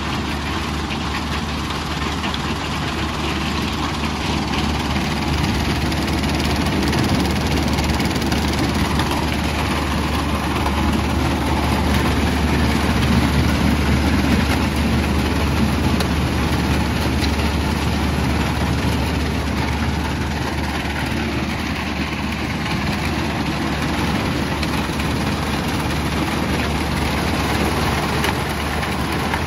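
Powerscreen Chieftain 1400 mobile screening plant running steadily: a diesel engine hum under the continuous rattle and hiss of sand and gravel pouring over the vibrating screen mesh and off the conveyor.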